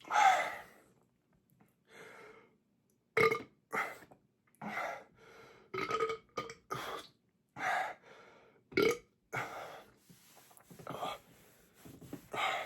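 A man belching repeatedly from a stomach full of gulped soda: one loud belch at the start, then a string of shorter belches and breaths about every second.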